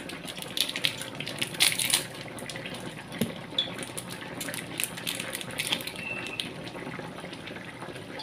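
Chicken, potatoes and carrots simmering in broth in a large wok, bubbling and crackling steadily, with sharper crackles in the first two seconds.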